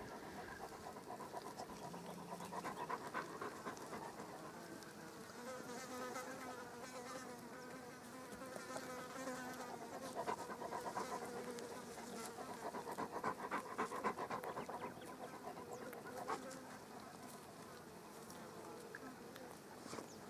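Insects buzzing in faint steady hums that fade in and out, with scattered faint clicks.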